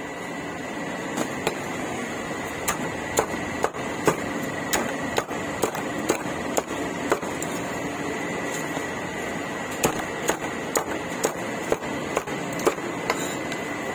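Sharp knocks at about two a second, stopping for a few seconds in the middle and then resuming, over a steady background hum and a thin high steady tone.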